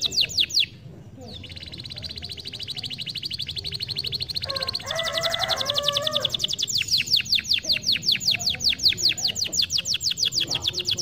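Domestic canary singing: long, fast trills of repeated high notes. The song breaks off briefly about a second in, and a lower warbling phrase comes around the middle before the quick trills resume.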